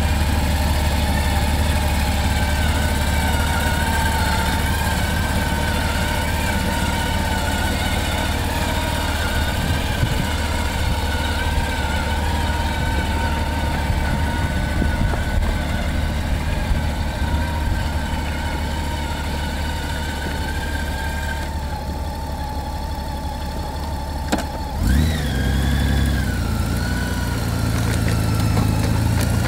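Honda Gold Wing's flat-six engine idling and pulling at walking pace, a steady low hum, as the motorcycle is steered slowly on its lowered landing-gear wheels. A short thump comes near the end, after which the engine note changes.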